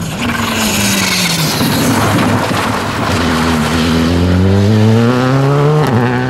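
Skoda Fabia R5 rally car driven flat out on a gravel stage, the loud engine note with gravel and tyre noise. The pitch drops briefly early on as the driver lifts, then climbs steadily under acceleration, with a quick break for a gear change near the end.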